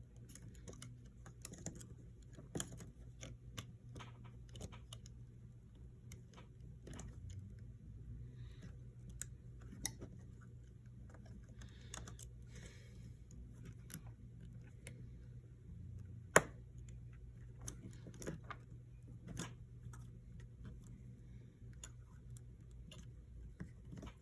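Irregular small clicks and taps of an iPhone's internal parts and hand tools being handled, with one sharper click about two-thirds of the way through, over a steady low hum.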